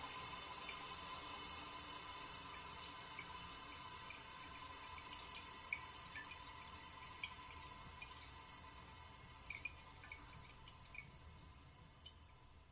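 Toilet cistern refilling after a flush: the fill valve hisses steadily with water trickling, slowly dying down as the tank fills, with a few small drips along the way.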